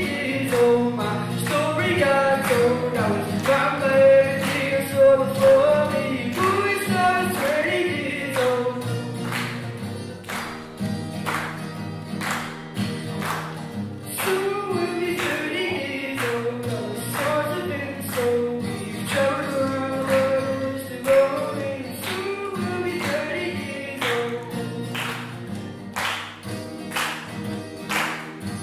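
A live male vocal with strummed acoustic guitar. The voice sings two long phrases with a gap between them, while the guitar keeps up a steady strumming rhythm throughout.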